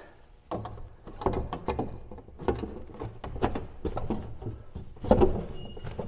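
Sheet-steel panel being shifted and pressed against a tractor cab's steel roof and windshield frame for a trial fit: irregular knocks, taps and scrapes of metal on metal, loudest about five seconds in.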